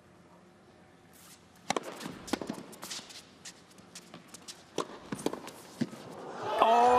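Tennis rally on an indoor hard court: a string of sharp racket hits on the ball mixed with players' shoes scuffing and squeaking. Near the end the crowd breaks into cheering and applause as the point ends.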